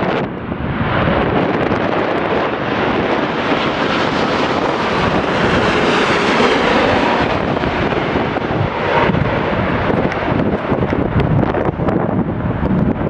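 A jet airliner passing, its engine noise swelling to loudest about six seconds in and then fading, with a faint gliding tone as it goes by. Strong gusty wind buffets the microphone throughout.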